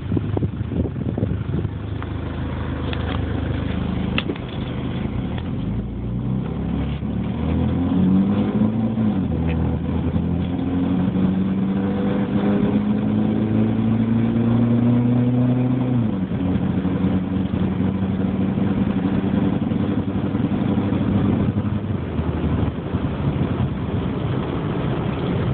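2005 Dodge Neon under acceleration, making a noise described as horrible. The engine's pitch climbs slowly from about a third of the way in, drops sharply past halfway, then holds steady over a rough, noisy background.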